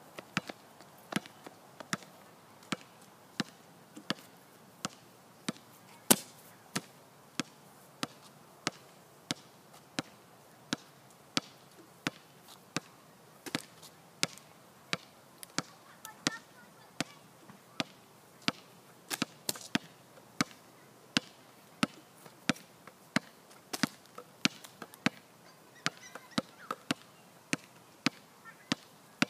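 Sharp clicks repeating about one and a half times a second at a fairly even pace for the whole stretch, one louder click about six seconds in, over a faint background with a few faint chirps.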